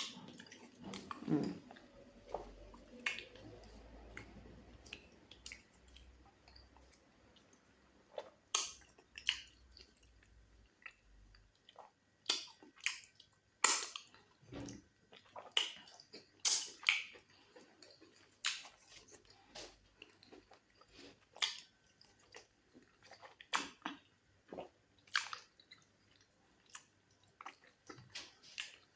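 Close-miked mouth sounds of eating: wet chewing and lip smacks, a string of short irregular clicks. Fufu with black soup and goat meat is being chewed.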